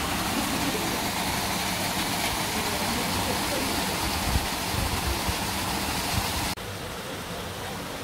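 Steady rush of a small waterfall pouring into a rock pool. About six and a half seconds in it cuts abruptly to the quieter flow of a shallow stream.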